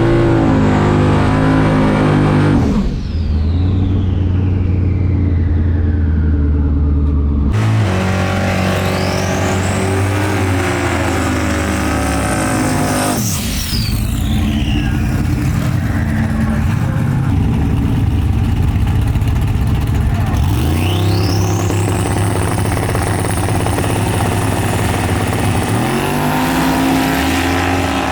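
Race cars making high-powered passes, with whistling glides that rise and fall in pitch. The sound changes abruptly several times, as at cuts between runs.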